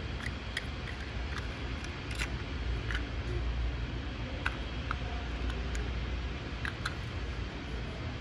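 Small plastic toys clicking and tapping as they are picked up and set down on a brick ledge: scattered light clicks over a steady low rumble.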